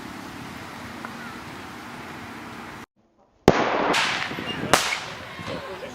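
Beach bonfire flaring up: a sudden loud rush of noise with sharp pops about three and a half seconds in and again a second later, fading afterwards. Before that a steady hiss runs until a brief drop to silence.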